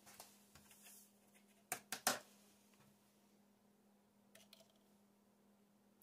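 Hard plastic measuring cup handled and set down on a steel-topped digital kitchen scale: three quick knocks about two seconds in, then a couple of faint ticks later, over a steady low hum.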